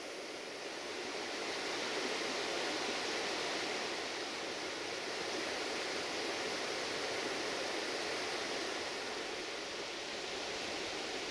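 Steady rushing of a river: an even hiss with no distinct events, swelling slightly about two seconds in.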